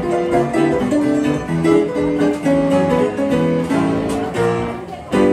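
Upright piano played live: a lively tune of quick single notes over a bass line, easing off briefly near the end before a new loud chord comes in.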